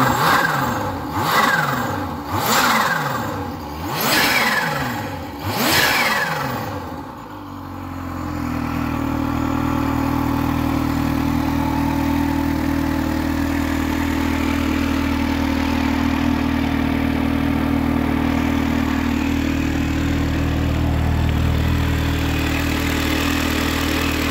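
Kawasaki Z H2's supercharged inline-four engine revved in about five quick throttle blips, each with a whistle rising and falling. It then drops to a steady idle about eight seconds in.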